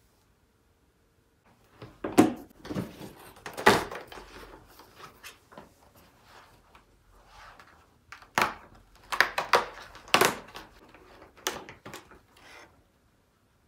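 Household objects being handled: a string of sharp knocks and clunks with rubbing in between, in two bursts, the first starting about two seconds in and the second about eight seconds in.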